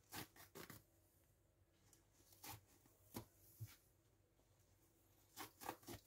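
Near silence broken by a handful of faint, brief rustles and clicks from something being handled.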